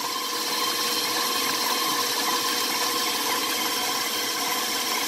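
Electric mixer running steadily, its metal beaters whirring through a wet batter of creamed shortening, egg and mashed persimmon, with an even motor hum.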